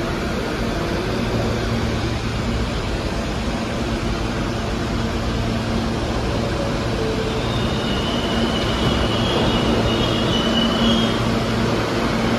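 R160 subway train standing at the platform with a steady hum from its air conditioning and onboard equipment, then getting louder in the last few seconds as it starts to pull out.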